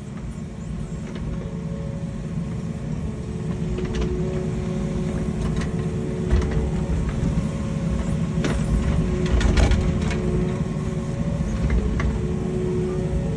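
A machine's engine running steadily, with a low rumble and a steady whine, and several sharp knocks in the middle.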